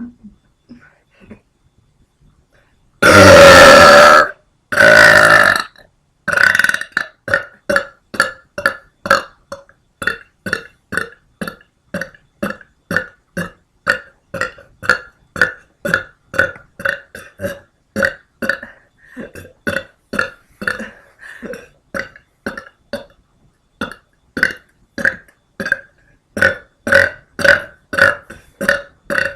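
A woman burping: two long, very loud burps, then a long rapid string of short burps, about two or three a second, made by swallowed air.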